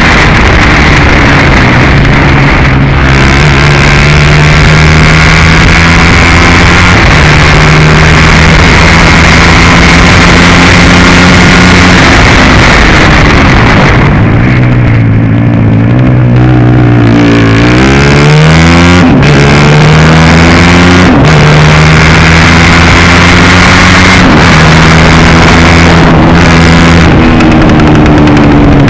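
150 cc kart engine, heard onboard, running loud at high revs. About halfway through the revs drop off, then climb back up in a rising whine as the kart accelerates again.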